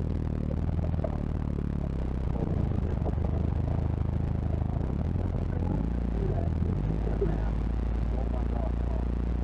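Toyota off-roader's engine running at low crawling speed, heard from inside the cabin, with a brief rev that rises and falls about six seconds in.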